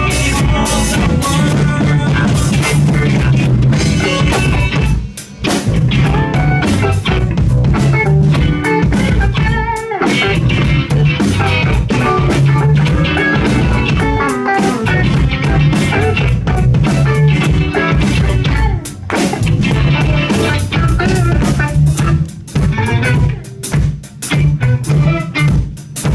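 Live rock band playing an instrumental passage on electric guitar, electric bass and drum kit. The music breaks off briefly about five and ten seconds in, and turns choppy and stop-start near the end.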